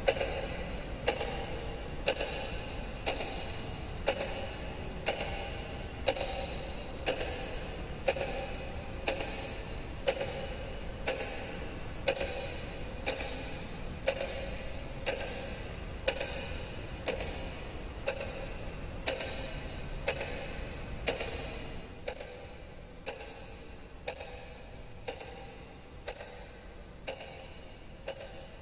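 A clock ticking steadily, about one tick a second, over a low background hum that drops away a little past two-thirds through.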